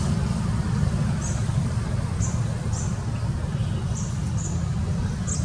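Outdoor background noise: a steady low rumble with about six short, high-pitched chirps scattered through it.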